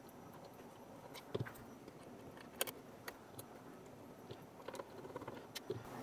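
Faint, scattered small clicks and taps of a screwdriver working a wire into a screw terminal block, a few separate ticks a second or so apart.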